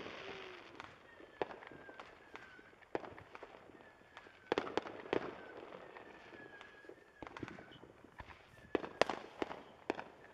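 Fireworks and firecrackers popping irregularly, in quick clusters about four and a half seconds in and again around nine seconds in.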